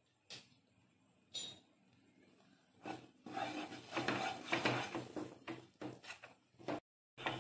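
Plastic slotted spatula scraping and knocking against a nonstick pan as it stirs and folds a thick milk-powder burfi dough, which is cooking down to the point where it no longer sticks to the pan. Two brief taps early, then irregular scraping and knocking from about three seconds in.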